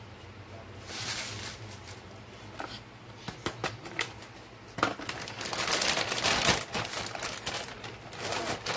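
Plastic zip-top bag crinkling and rustling as it is handled, with scattered small clicks in the first half. The rustling gets louder and more continuous after about five seconds.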